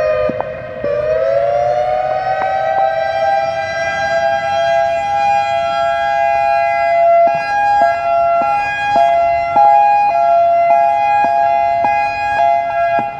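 EOWS 612 electronic outdoor warning siren sounding a two-tone chord: the pitch sags about a second in, climbs back over the next two seconds and then holds steady.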